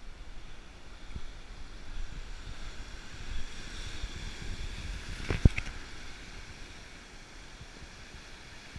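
Ocean surf breaking and washing against a rocky shore, with wind buffeting the microphone. A single sharp knock about five and a half seconds in is the loudest sound.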